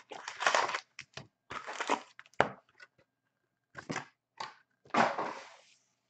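Foil-wrapped Upper Deck Artifacts hockey card packs crinkling and rustling as they are handled, stacked and set down on the table, in several short bursts with pauses between them.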